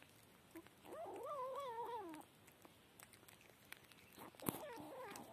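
A cat's long call with a wavering pitch about a second in, and a second call near the end, as it feeds on a snake; a sharp click sounds as the second call begins.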